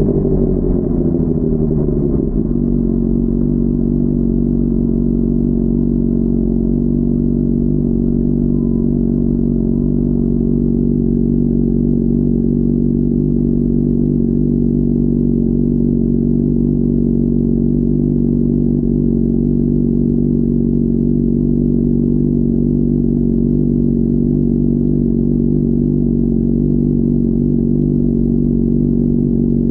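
Honda CBR600RR's inline-four engine coming off the throttle, its revs falling over the first two seconds, then running at a steady low idle. It is muffled, heard through a mic inside the rider's backpack.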